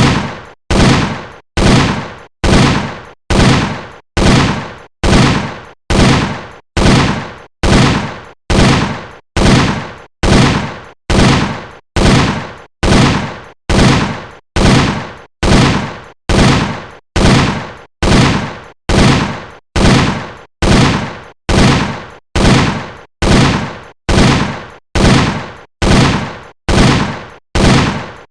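M60 7.62 mm machine gun firing: sharp reports repeated at a steady pace of about one a second, each ringing off before the next.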